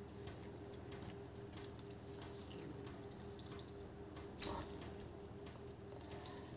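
Faint drips and small clicks of water being squeezed from boiled bitter gourd slices over a steel bowl, over a steady low hum. A sharper tick comes about a second in, and a slightly louder splash-like noise about four and a half seconds in.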